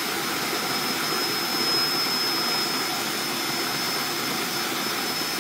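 Cordless drill driving a malt mill, running steadily as the mill crushes malt for brewing, with a thin high whine throughout.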